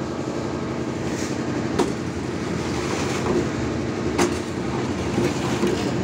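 Automatic concrete mixer's engine running steadily, with a few sharp clanks as wet concrete and stones slide off the chute into a metal trolley.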